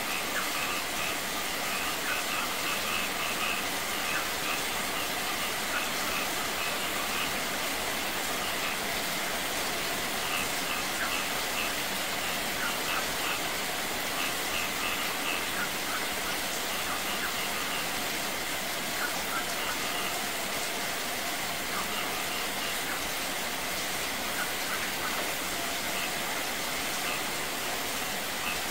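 Rain pouring onto a wet concrete courtyard and splashing from a small waterfall over rocks: a steady, even rushing hiss. Clusters of short, high chirps come and go over it.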